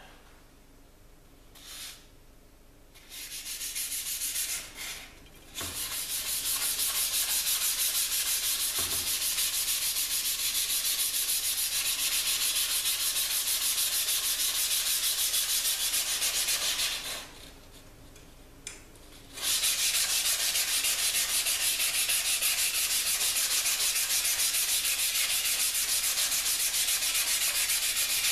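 600-grit sandpaper rubbed back and forth by hand over an etched Damascus steel knife blade in quick, even strokes, cleaning off the etch residue between etching baths. The sanding starts about four seconds in and pauses briefly near two-thirds of the way through before carrying on.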